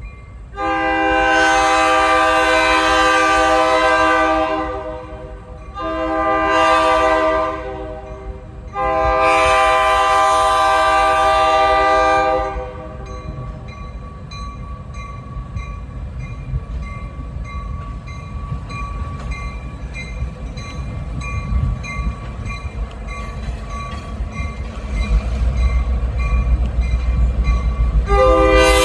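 A GP38-2 diesel locomotive's multi-chime air horn sounds for a grade crossing: a long blast, a short one, then another long one, and a fresh long blast begins near the end. Between the blasts a crossing bell rings steadily, and the locomotive's diesel rumble grows louder over the last few seconds as it nears.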